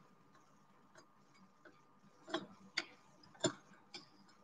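A few faint, separate clicks and taps from a ring of stainless steel measuring spoons being handled and set down on the table, the loudest about three and a half seconds in.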